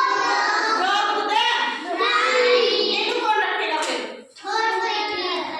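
Several young children's voices at once, loud and continuous, with a short break about four seconds in.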